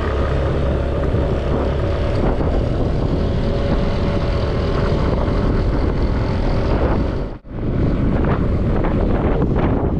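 Motorcycle engine running under way, with wind rushing over the microphone. The sound cuts out for a moment about seven seconds in, and after that the wind buffeting is gustier.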